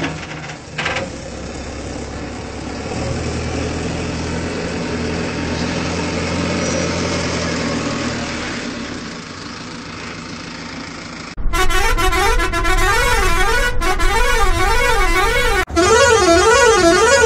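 Kerala tourist bus sound: the engine running with a low steady drone that swells and then eases off. About eleven seconds in, a loud musical air horn cuts in, playing fast warbling tones that swoop up and down in a tune, with one short break near the end.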